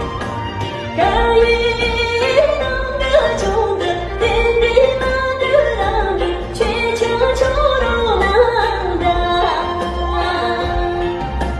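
Music: a song with a lead singer's voice carrying a wavering melody over instrumental backing and a steady low beat.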